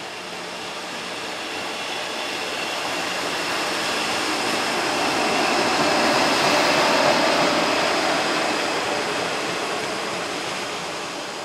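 JR Freight EF66 electric locomotive running light past at low speed: a steady rumble with thin high whining tones that swells to its loudest around the middle and then fades away.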